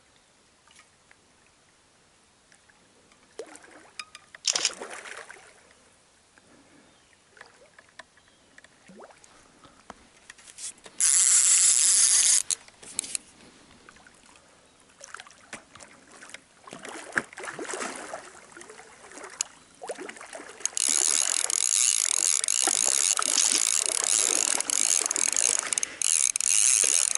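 Fishing reel ratcheting under the pull of a hooked lake sturgeon: scattered clicks at first, a loud rasping run of about a second and a half near the middle, then steady loud ratcheting through the last six seconds.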